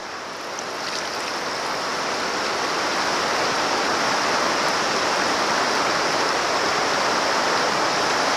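Shallow, fast river riffle rushing and gurgling right at the microphone, growing louder over the first few seconds and then steady.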